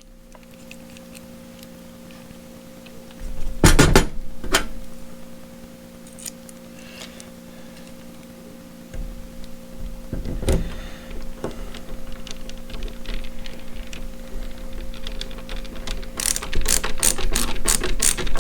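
Belt clip being screwed onto a cordless impact wrench: two handling knocks, then a fast run of small clicks near the end as the screw is turned in, over a steady low hum.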